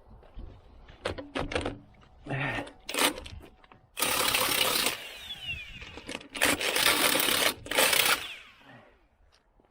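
A power tool, most likely an impact wrench, runs in three bursts of about a second each, after a few sharp metal clanks of tools. It is being used on a seized lug nut that will not come off.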